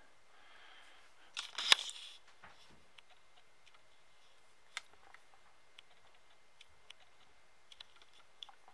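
Small clicks and taps from handling the opened plastic headphone earcup and its cable plug and jack board: a quick cluster of sharp clicks about a second and a half in, then scattered faint ticks.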